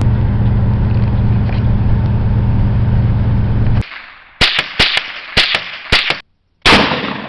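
A steady vehicle engine drone, which cuts off abruptly a little under four seconds in. Then a rapid series of about seven sharp gunshots, a short gap, and one louder gunshot that echoes and dies away.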